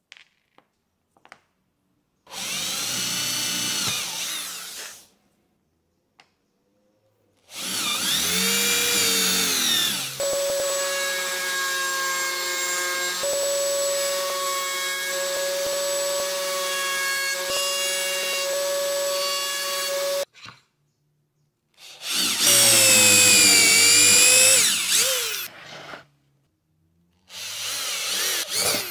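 Electric power tools in a series of short runs, each spinning up and winding down in pitch. In the middle a router mounted upside down in a router table runs steadily for about ten seconds as a hardwood strip is fed past the bit. Near the end an electric drill bores into plywood.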